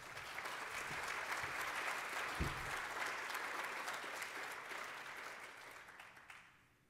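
Audience applauding at the end of a talk, a dense spread of clapping that fades away over the last couple of seconds. A single low thump sounds about two and a half seconds in.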